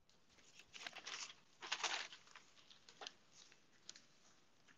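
Faint rustling and brushing of a hand moving on a desk near the microphone, in a few short bursts, the two largest about one and two seconds in.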